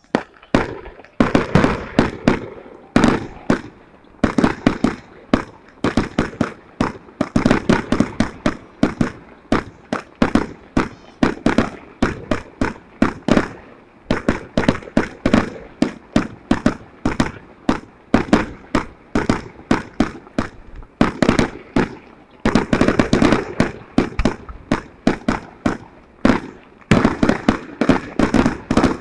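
Aerial fireworks bursting in rapid succession, several sharp bangs a second, with thicker volleys about three-quarters of the way through and again near the end.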